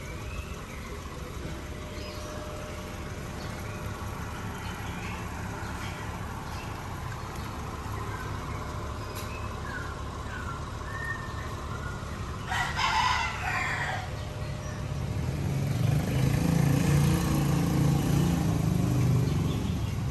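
A rooster crows once, about twelve seconds in, for a second and a half. Under it a parked SUV's engine idles steadily with the air conditioning on. A low rumble grows louder over the last few seconds.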